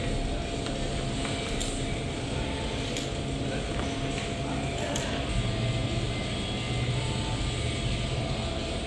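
Climbing gym hall ambience: a steady hum of ventilation with faint distant voices and a few light clicks.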